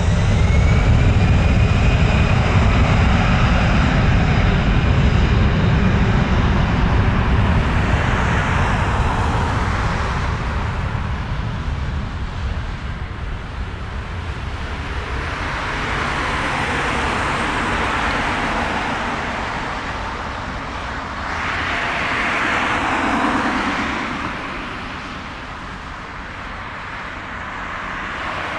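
Twin-engine jet airliner landing: a loud roar with a rising engine whine as it comes down onto the runway, fading as it rolls away, then swelling twice more as the engines spool up again while it slows on the runway, typical of reverse thrust.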